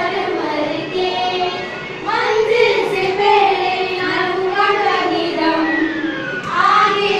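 Young children singing an action song together.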